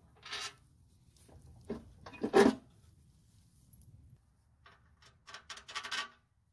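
A hand scrubbing back and forth over a gritty surface, a quick run of about eight rubbing strokes near the end. Before that come a few short scrapes and a single louder knock about two seconds in.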